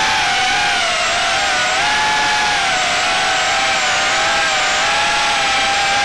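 FPV quadcopter's electric motors and propellers whining, a loud buzzing made of several close pitches that waver up and down together.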